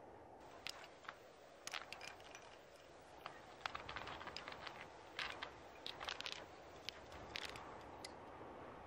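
Faint, irregular taps, clicks and scrapes of a climber's hands, shoes and gear against the rock as he moves up the wall, some in quick clusters, over a low steady hiss.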